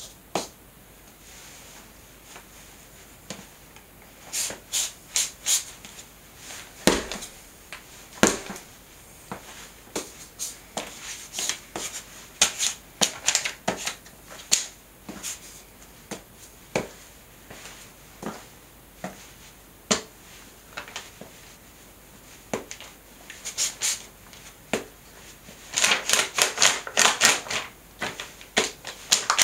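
Adidas Roadmace running shoes' rubber soles stepping and grinding on a sheet of photo paper over a tile floor, giving scattered crisp paper crinkles and scuffs. Near the end comes a fast run of quick stamps.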